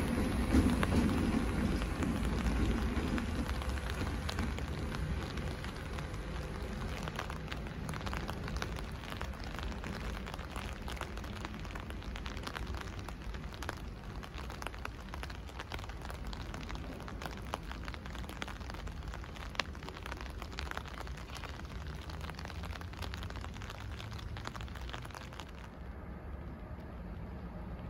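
A pair of red DB Cargo electric locomotives running off, their rumble fading over the first few seconds. After that, a steady low rumble and hiss with many fine crackles.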